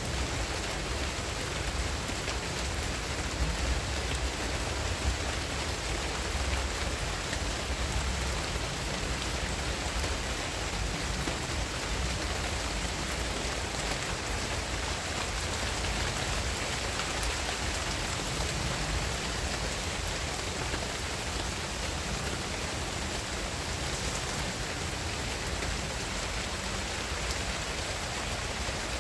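Steady rain shower pattering on garden foliage, an even hiss of drops with a low rumble beneath.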